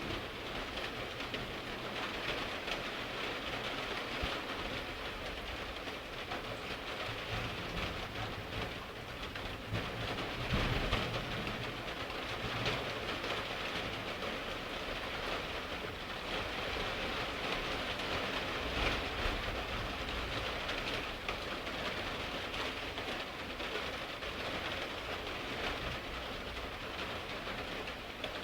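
Rain falling steadily in a thunderstorm, a constant hiss, with low rumbles of thunder coming and going, one swelling about ten seconds in.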